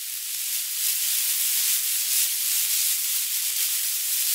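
Cartoon snake hiss: a steady hiss that grows a little louder about a second in.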